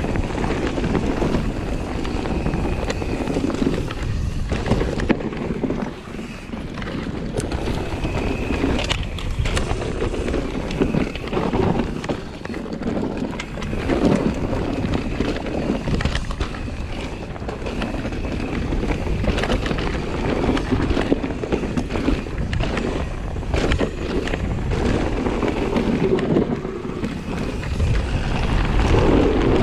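Trek Slash mountain bike running fast down a dirt and leaf-litter trail: tyres rolling over the dirt with a steady rumble, many short knocks and rattles from the bike over bumps, and wind buffeting the microphone.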